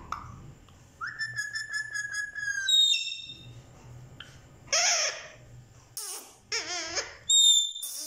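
Rose-ringed parakeet (Indian ringneck) whistling and calling: a held whistle about a second in, then a quick falling whistle, then several short warbling, wavering calls and a sharp squawk, and a high clear whistle near the end.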